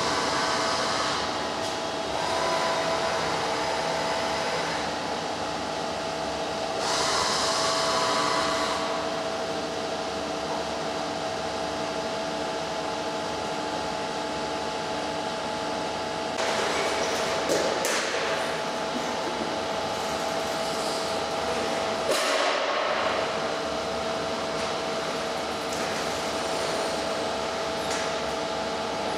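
Okuma LC50 heavy-duty CNC lathe running: a steady machine hum with a fixed tone, broken by several bursts of hissing noise and a few sharp knocks in the second half.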